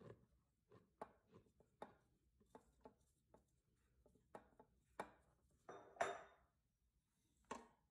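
Faint taps and soft rustles of flour being poured from a container into a steel stand-mixer bowl, with a louder soft rush of falling flour about six seconds in.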